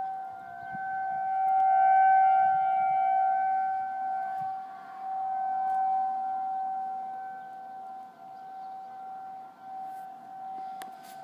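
Outdoor civil defense warning siren sounding a test: one steady held tone that swells and fades in loudness, loudest about two seconds in and again near six seconds, then weaker.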